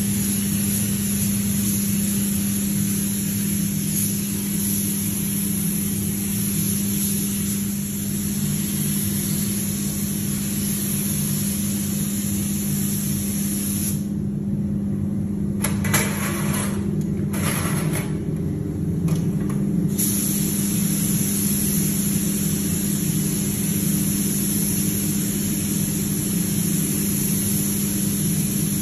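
Gravity-feed paint spray gun hissing as it sprays a car body, over the steady drone of the paint booth's air handling. About halfway through the hiss stops for several seconds, broken by a few short bursts of spray, then resumes.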